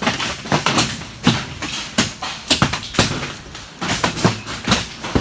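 Hailstones hitting a metal barn and the ground around it: irregular sharp knocks, several a second, some much louder than others.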